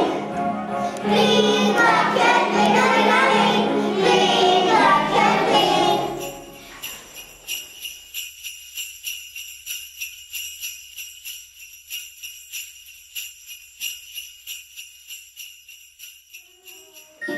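Children singing a Christmas carol with music, which ends about six seconds in. Sleigh bells then jingle in a steady rhythm, about two shakes a second, growing fainter toward the end.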